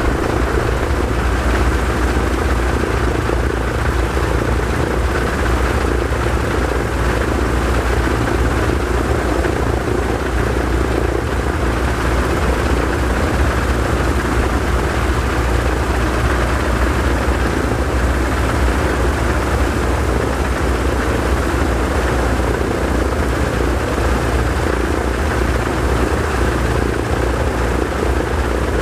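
PBY Catalina's two Pratt & Whitney R-1830 Twin Wasp radial engines running steadily in a ground engine run, both three-bladed propellers turning.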